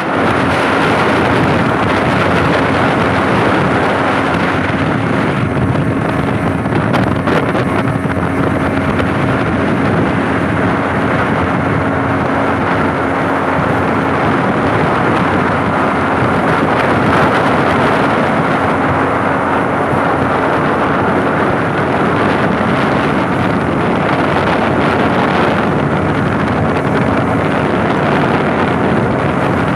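A 40 hp outboard motor running steadily at cruising speed, driving a boat along a river, with wind buffeting the microphone.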